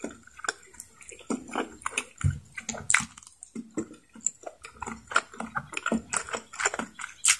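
Close-miked mouth sounds of a person eating adobo chicken neck with her fingers: wet chewing and lip smacks in an irregular series of short clicks.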